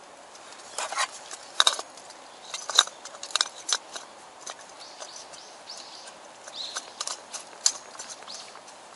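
Irregular metallic clicks and clinks of a folding single-burner camping stove being put together, each tap short with a slight ring.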